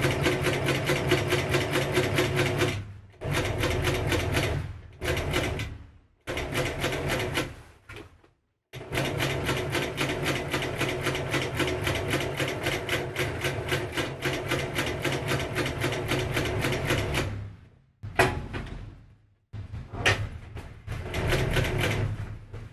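Industrial sewing machine stitching a leather pocket onto heavy apron fabric, running at a rapid, even stitch rate in bursts: several short runs, one long run of about eight seconds, then a few short bursts near the end.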